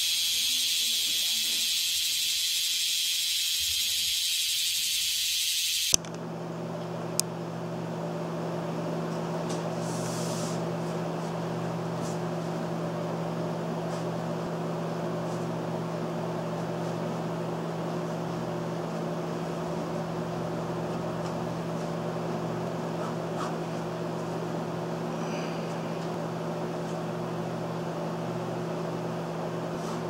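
Cicadas singing in a dense, high-pitched buzzing chorus that cuts off suddenly about six seconds in. A steady low electrical or mechanical hum takes over, with a single click just after.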